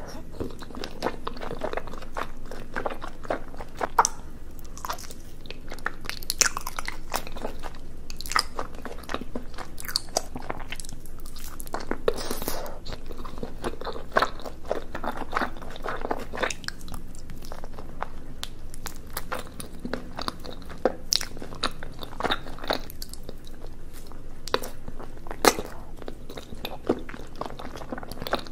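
Close-miked chewing of chewy Korean rice cakes (tteok) in a sticky red sauce, with many irregular sharp mouth clicks and smacks.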